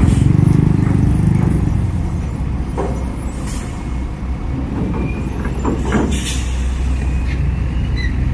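Diesel engine of a heavy Hino tandem-axle cargo truck rumbling as it drives off a ferry ramp, loudest in the first couple of seconds and then easing off as it pulls away. A few short hisses come through about three and six seconds in.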